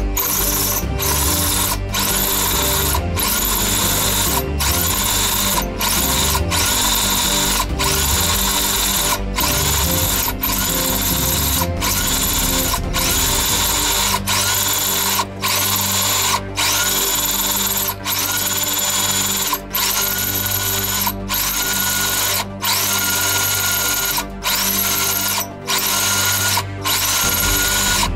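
DeWalt cordless drill run in short repeated pulses, about one every second and a half, each pulse starting with a rising whine as the motor spins up.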